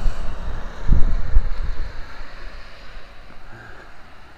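Wind buffeting the camera microphone in gusts, loudest about a second in and dying down after that.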